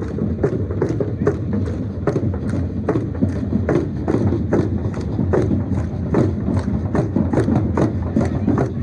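Matachines dance: a drum beaten in a steady quick rhythm, about two to three strokes a second, with the dancers' stamping steps in time, over crowd voices.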